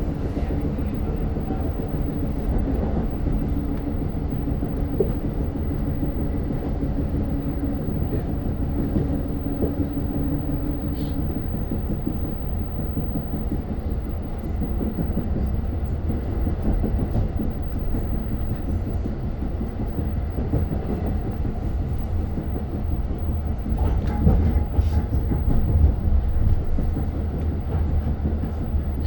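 Long Island Rail Road diesel train running along the track, heard from inside a passenger car: a steady rumble with faint wheel clicks. A held hum fades out about eleven seconds in, and the low rumble grows stronger near the end.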